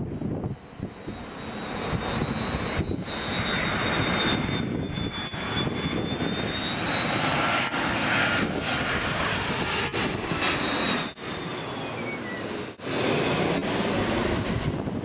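Qantas Airbus A330-200's twin turbofan engines on final approach passing low overhead: a steady roar under a high fan whine. It swells over the first couple of seconds, holds through the pass, and a second whine glides down in pitch as the jet goes away, with a few brief dropouts in the sound.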